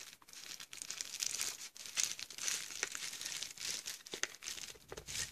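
Plastic bubble wrap crinkling and crackling under a handheld digital multimeter as it is handled and shifted about, with many small irregular clicks.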